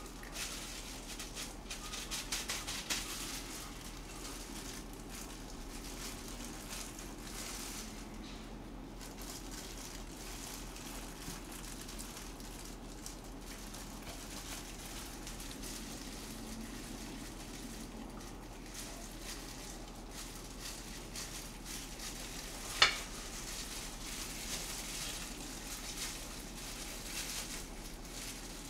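Light kitchen handling noises from working rice into fried tofu pockets, over a steady low hiss, with a few small clicks early on and one sharp click or tap a little over 20 seconds in.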